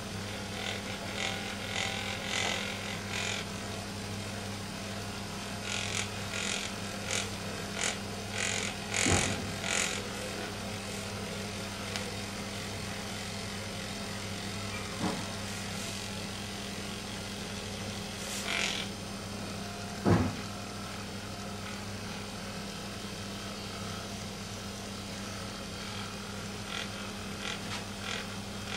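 Corded Magnessage handheld massager running with a steady low hum while held against a cat's fur, with a few brief rustles and knocks from handling.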